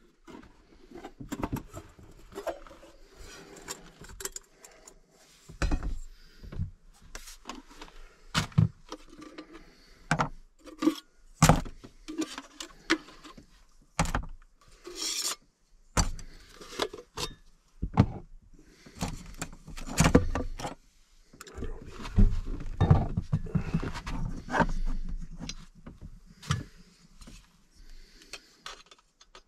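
Irregular clicks, clinks and rubbing of metal camp cooking gear being handled: a can of chili worked open with a hand can opener and a Jetboil stove and steel pan set up. There is a short hiss about fifteen seconds in.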